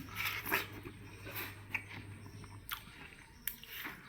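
A person chewing a mouthful of watermelon, with short, irregular biting and chewing sounds.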